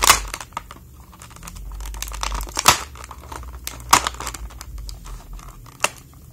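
Clear plastic packaging around a toy figure crinkling and being pulled open by hand. Several sharp crackles come through as the taped plastic gives, the loudest right at the start.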